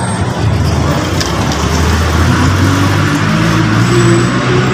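Street traffic with a motor vehicle's engine running close by: a steady low hum over road noise, its pitch shifting slightly.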